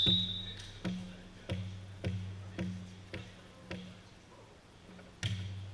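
A volleyball bounced on a hardwood gym floor, about two bounces a second, each bounce followed by a low ring in the hall. One louder smack of the ball comes a little over five seconds in. A short high tone is heard at the very start.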